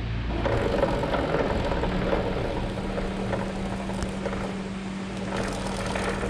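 Suzuki RC two-stroke underbone motorcycle running with its drive chain clattering inside the enclosed chain case: a noisy chain. A steady hum joins about two seconds in.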